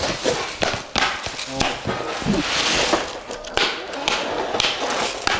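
Unpacking noise from flat-pack furniture: rustling of plastic wrapping, strongest in the middle, among a string of knocks and taps as a molded pulp tray with plastic parts is moved.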